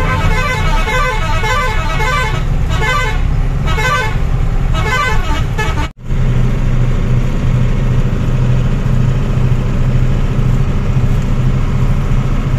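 A vehicle horn sounding in several blasts with a warbling, up-and-down pitch over engine and traffic noise. After a sudden break about six seconds in comes the steady low drone of the truck's engine and road noise at cruising speed, heard from inside the cab.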